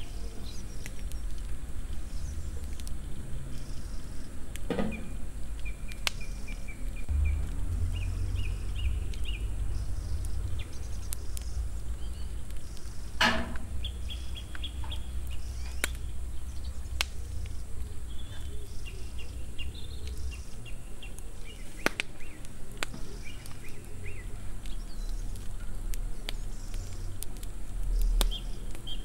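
Small birds chirping in short bursts over a steady low rumble, with a few sharp clinks and knocks of kitchenware, the loudest about halfway through.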